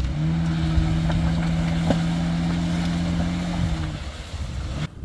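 First-generation Honda Ridgeline's 3.5-litre V6 running hard at steady revs as the truck drives through a mud patch. The engine note drops away about four seconds in, briefly comes back near the end, then cuts off.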